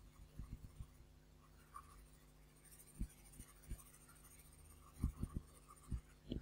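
Graphite pencil making short, hard-pressed shading strokes on paper to darken the hair, heard as faint, irregular scratches and soft taps, with small clusters about half a second in, around three seconds in and around five seconds in.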